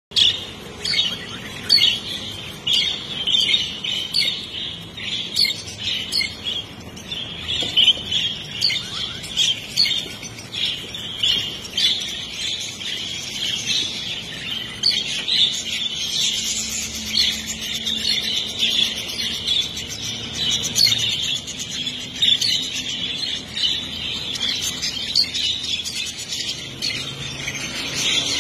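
A group of caged hagoromo (frizzle-feathered) budgerigars chattering: a continuous warbling chorus dotted with many short, sharp chirps.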